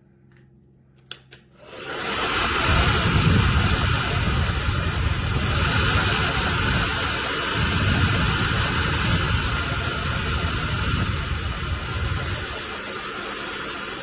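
Beurer hair dryer switched on with two clicks about a second in, then blowing steadily with a loud rushing hiss, its airflow buffeting the microphone in a low rumble, easing off near the end.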